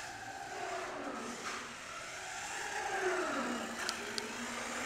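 Losi Strike 1/10-scale short course RC truck's electric motor and geared drivetrain whining, the pitch rising and falling as it speeds up and slows down. Two sharp ticks sound about four seconds in.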